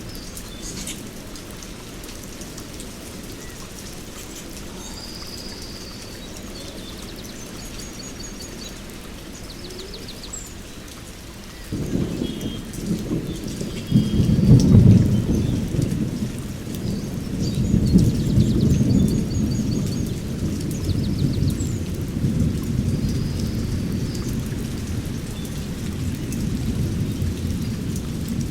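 Steady heavy rain, then about twelve seconds in a low rumble of thunder breaks in, loudest a few seconds later, and keeps rolling to the end. A bird chirps now and then above the rain.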